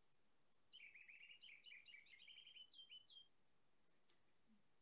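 Recorded ruby-crowned kinglet song played over a video call, faint and partly cut out. A high thin note trails off, then comes a quick run of lower twittering notes, then rising, repeated chirping phrases, with one louder note about four seconds in.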